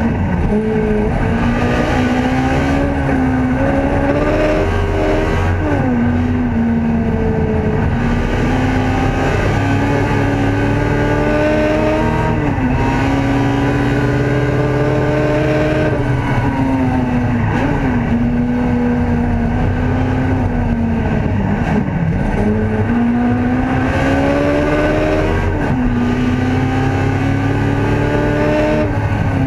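Ford Escort race car's engine heard from inside the cabin under hard acceleration. The revs climb and then drop sharply at each upshift, several times, with a brief dip and pick-up a little past the middle as the car slows for a corner and drives out of it.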